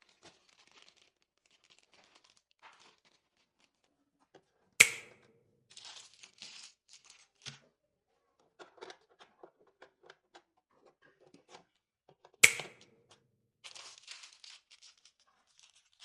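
Packaging being handled: scattered rustling, crinkling and tearing of plastic and cardboard, with small clicks. Two sharp, loud snaps stand out, one about five seconds in and another about seven seconds later.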